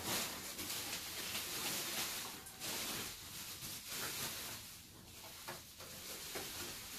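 Bubble wrap rustling and crinkling as it is handled and pulled off a radio-controlled car, coming and going with the hand movements and quieter for a moment about five seconds in.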